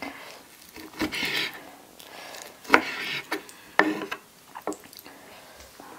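A plastic bag of sliced boiled pig ear being handled by hand: a rustle about a second in, then a few scattered sharp clicks and crackles.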